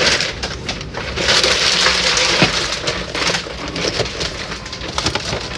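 Food packaging being handled, with rapid crinkling and crackling and a scatter of sharp clicks, busiest in the first half.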